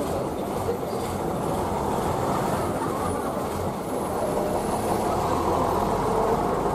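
Heritage electric tram running on its rails: a steady rumble of wheels and running gear, with a faint high wheel squeal in the middle.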